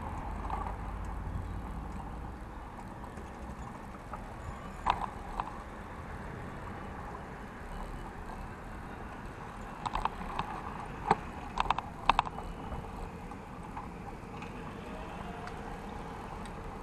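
A city bike being ridden, heard from a camera on its handlebar: a steady low rumble of tyres and wind. Sharp clicks and rattles come about five seconds in, and again in a cluster between ten and twelve seconds.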